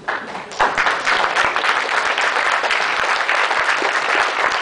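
Audience applauding: many people clapping together, starting suddenly and holding steady.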